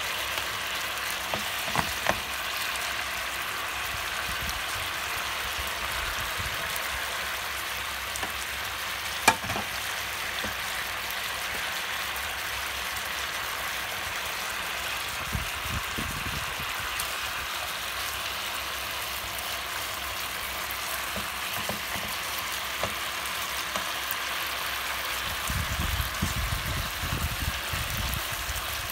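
Pork shoulder steaks sizzling in bubbling fat in a frying pan: a steady frying hiss with scattered pops, and one sharp click about nine seconds in.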